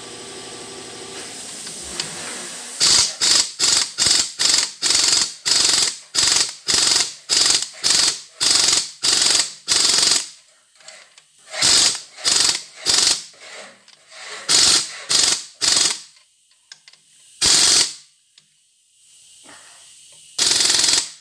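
Pneumatic impact wrench hammering on a rusted-in original exhaust manifold bolt of a Bombardier engine, driven in short trigger bursts, about three a second for several seconds, then a few spaced-out bursts with pauses between.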